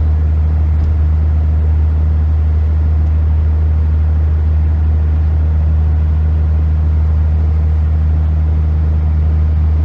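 A car driving steadily at road speed, heard from inside the cabin: a constant low drone of engine and road noise that does not change.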